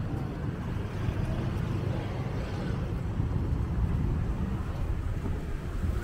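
Steady low rumble of street traffic and roadside ambience, with no distinct events standing out.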